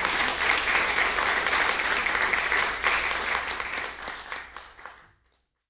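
Audience applauding: dense, steady hand-clapping that fades and cuts off into silence about five seconds in.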